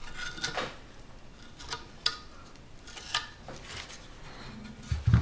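Metal filling knife scraping and clicking against a cast iron gutter as fibreglass-reinforced body filler is worked into a hole: a scattered series of short scrapes and clicks, with a heavier knock near the end.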